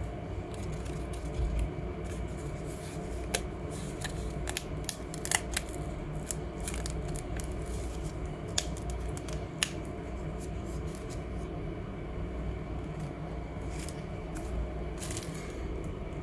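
A dry leaf crackling and crinkling as it is handled and bent between the fingers. The sharp crackles come in a run through roughly the first ten seconds, with a brief rustle near the end, over a steady low hum.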